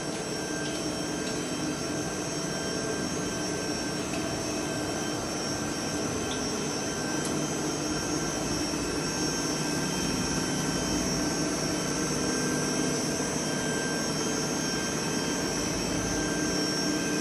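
Blown-film extrusion line for LDPE liners running steadily: a constant whirring drone from its air-ring blower and motors, with several steady whining tones over the noise. It grows a little louder about halfway through.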